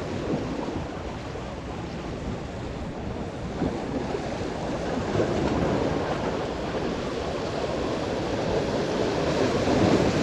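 Sea waves washing and breaking among the rocks of a jetty. The surf swells about halfway through and again near the end.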